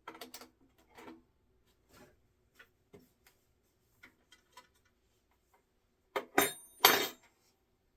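Hand tools and metal parts being handled at a workbench: light scattered clicks and taps, then two loud metallic clanks about a second apart near the end, the second one ringing briefly.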